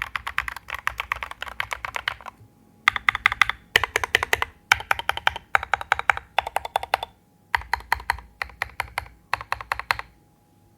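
Typing on a MAXFIT108 mechanical keyboard with lubed Jwick Ultimate Smokey linear switches and tall SA-profile Maxkey keycaps. The keystrokes come in fast runs with brief pauses between them and stop about ten seconds in.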